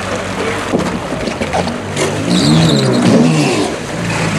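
Yamaha personal watercraft engine running low, then revving up and back down for about a second and a half, starting about two seconds in, as the craft is driven up out of the water onto a plastic drive-on dock, then settling back to a steady run.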